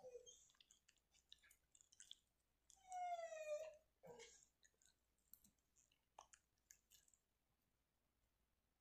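A dog licking and mouthing at a sausage, with small wet clicks and smacks, and a single high whine about a second long, falling slightly in pitch, about three seconds in.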